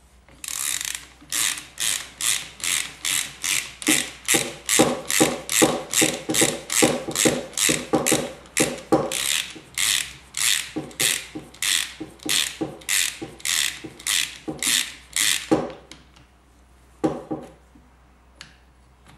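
Socket ratchet clicking in steady, even strokes, about three a second, as it winds a motorcycle fork cap down onto the damper rod. The run of strokes stops about three-quarters of the way through, leaving a couple of single clicks near the end.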